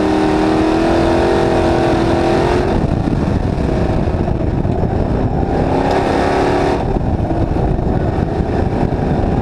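Dirt-track stock car's engine heard from on board at racing speed, its pitch climbing until about two and a half seconds in, then falling away as the throttle closes; it pulls again around five seconds in and lets off near seven seconds, over steady tyre and wind noise.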